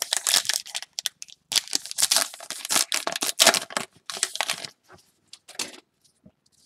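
Trading-card pack wrapper torn open and crinkled for about five seconds, then a few soft rustles as the stack of baseball cards is slid out.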